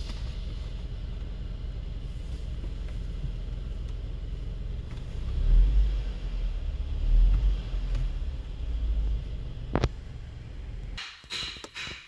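Low steady rumble, swelling heavier in the middle, with a single sharp click near the ten-second mark; the rumble drops away about a second before the end.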